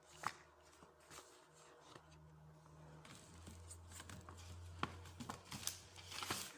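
Faint rustling of plastic packaging being handled, with a few light clicks and taps, over a low steady hum that comes in about halfway.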